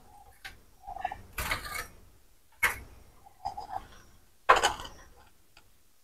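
Handling noises: several separate sharp clicks and light knocks as a hand takes an egg out of a wooden canary cage to check it with a flashlight.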